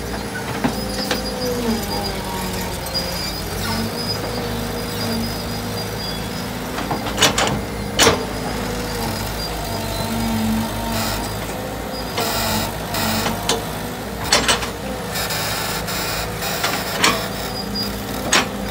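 Small tracked excavator's diesel engine running steadily, its note dipping and rising as the hydraulics take load, while the bucket churns wet concrete mortar in a steel mixing box. Several sharp metallic clanks sound as the bucket knocks against the box.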